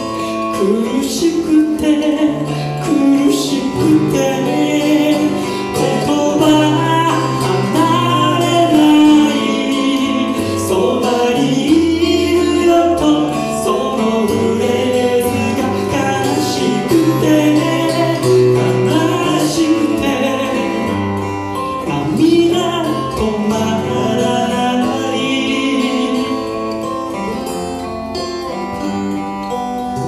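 Two acoustic guitars played together, accompanying a singer's sung melody in a live performance of a slow song.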